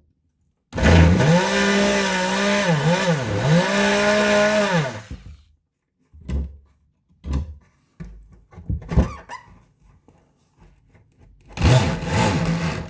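Ridgid JobMax oscillating multi-tool with a saw blade cutting into 3/4 inch plywood: a loud steady buzz whose pitch dips twice, stopping about five seconds in. A few scattered knocks follow, then another short run of the tool near the end.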